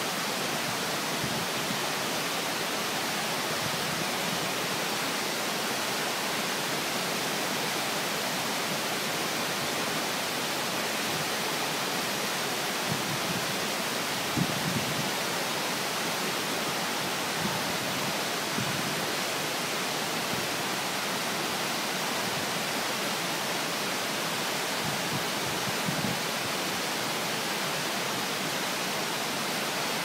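Waterfall pouring down a rock face and splashing onto the rocks at its foot: a steady, even rush of falling water, heard up close.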